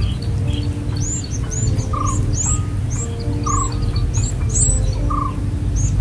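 Relaxing background music: soft held piano notes with a recorded bird chirping over them, a short, high, arching chirp about twice a second.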